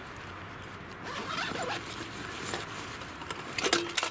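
Zipper on a nylon duffel bag being pulled open with a rasping run, followed near the end by a few sharp knocks as gear is lifted out of the bag.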